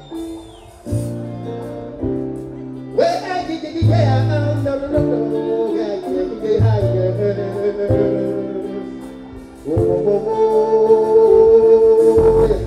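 A man singing live into a microphone over a slow backing track played through a stage sound system, holding one long note near the end.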